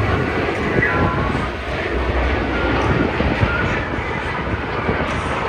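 Jet engines of a four-jet military formation flying past, a continuous loud jet noise.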